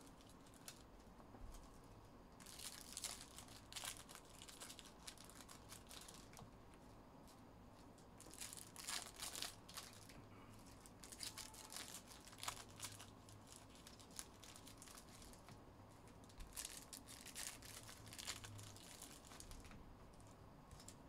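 Foil trading-card pack wrappers crinkling and tearing in faint, scattered bursts as packs are torn open by hand and the cards handled.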